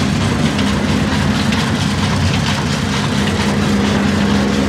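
Heavy 1950 Ruston Hornsby 35 hp single-cylinder horizontal diesel engine running steadily, with a low hum and a fast, even clatter. Its flywheel and drive belts are turning.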